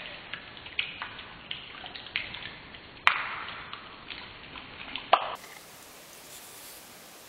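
Scattered light clicks and ticks, with two sharp, louder clicks about three and five seconds in, then only faint hiss; no grinder is heard running.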